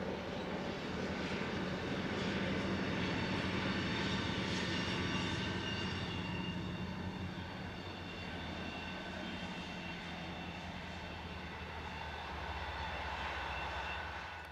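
A heavy diesel engine running steadily, growing louder a couple of seconds in and again near the end before cutting off suddenly.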